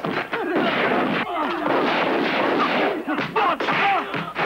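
Martial-arts film fight soundtrack: a dense run of punch and impact sound effects with shouting.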